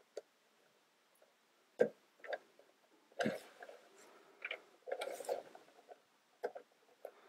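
Plastic toy-construction pieces (beams and columns) clicking and knocking as they are handled and pressed together, a scattering of separate sharp clicks with a few short rattling clusters.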